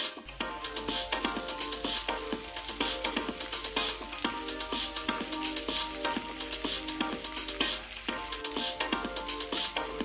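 Panini sandwiches sizzling on an OBH electric contact grill: a steady sizzle that starts just after the beginning, with background music playing over it.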